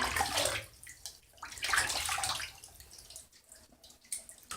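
Water splashing and dripping as a small dog is washed in a bath, with the tap running at a trickle; the splashes come unevenly, louder at the start and again about two seconds in, then fainter.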